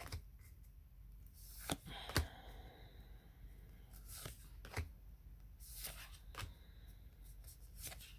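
Faint, scattered swishes and taps of tarot cards being slid one at a time off the front of a handheld deck, about one every second.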